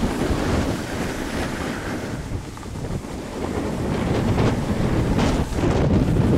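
Wind buffeting the camera microphone of a snowboarder riding downhill, mixed with the rushing hiss of the board sliding over the snow. It eases a little about two seconds in, then grows louder again.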